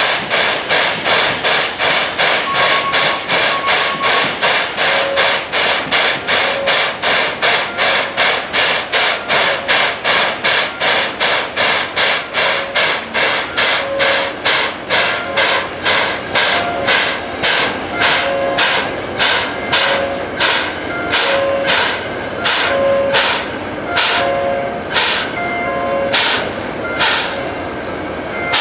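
C11 tank steam locomotive's steam-driven air compressor pumping in short hissing strokes. They come about three a second and slow to about one a second as the air reservoir fills, and the later strokes carry a faint whistling tone.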